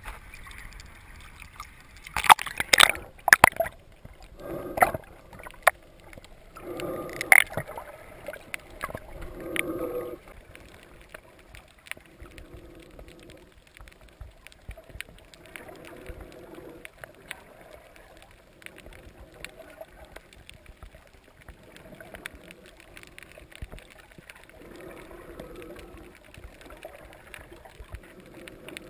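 Water splashing and knocking at the mic as a snorkeler ducks under the surface, then muffled underwater sound with slow breaths through the snorkel every few seconds.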